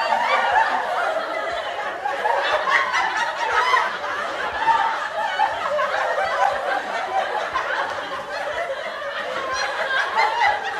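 Canned laughter: many voices laughing and snickering together without a break.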